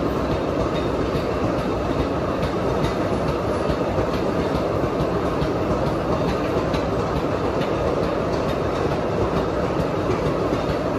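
Loaded sugarcane bins of a narrow-gauge cane train rolling past in a steady rumble of wheels on rail, with scattered light clicks.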